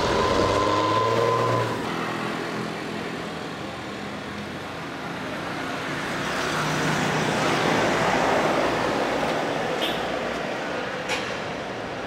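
Street traffic noise with vehicles going by, one passing close around the middle. A steady high tone sounds for about the first two seconds.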